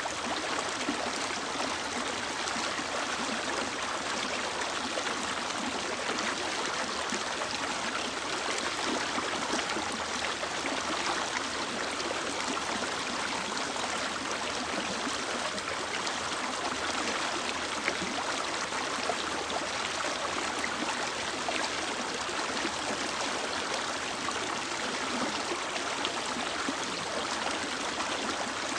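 A mountain stream flowing steadily over rocks: an even, continuous rush of water with small gurgles.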